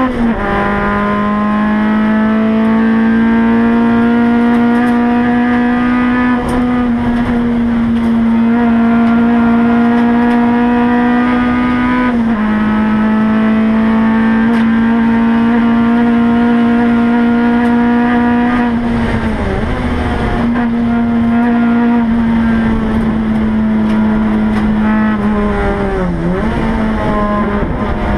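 Race car engine heard from inside the cabin, held at high revs down a long straight, its pitch climbing slowly in each gear. The pitch drops sharply about a second in and again about twelve seconds in as it shifts up, and in the second half the revs dip briefly twice before picking up again.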